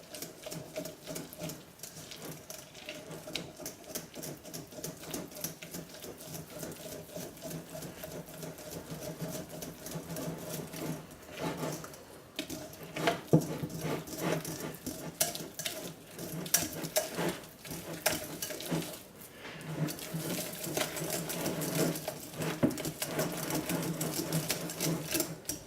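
Small electric mixer motor running with a steady hum while it churns thick, hot soap paste that has just had water added, with a rapid clatter over it. It stops briefly twice, about halfway through and again later.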